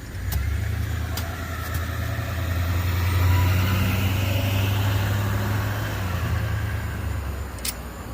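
A motor vehicle driving past: a low engine and road rumble that swells to a peak mid-way and fades away. A few sharp clicks are heard as it goes by.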